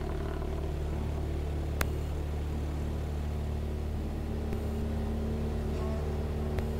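Cessna 172's piston engine and propeller running steadily, a constant drone heard inside the cockpit. A sharp click about two seconds in.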